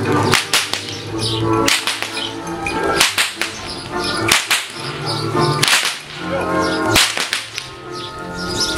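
Herdsman's whip cracking repeatedly: sharp, irregularly spaced cracks, about a dozen in all.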